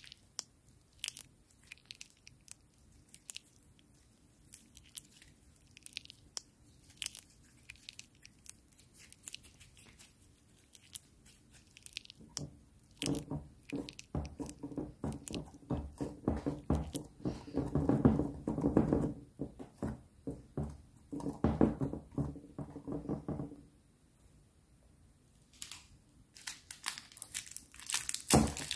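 Hands squishing and poking fluffy slime: scattered small sticky clicks at first, then a dense run of squelches and air-pocket pops from a little under halfway, stopping about four-fifths through. Near the end a small plastic packet crinkles as it is handled.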